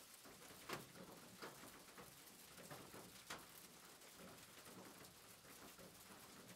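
Near silence: a faint steady hiss with a few soft, scattered clicks.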